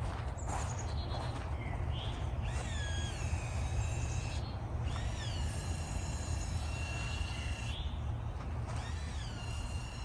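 Birds calling: a series of drawn-out whistled notes that rise and then hold level, repeating every second or two, over a steady low rumble.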